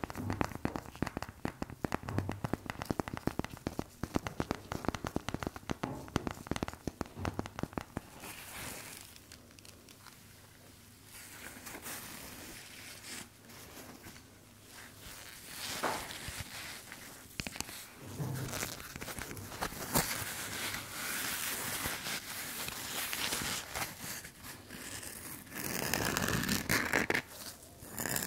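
Close-up ASMR trigger sounds: rapid light clicks for the first several seconds, then crinkling and rustling that runs on unevenly with sharper crackles now and then.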